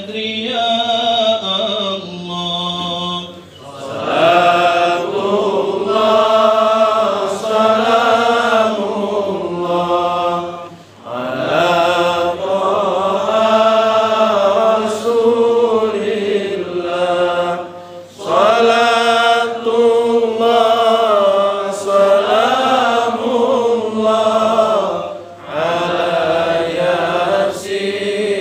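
A man chanting a salawat, Arabic devotional praise of the Prophet, into a microphone, in long melodic phrases with short breaks for breath about every seven seconds.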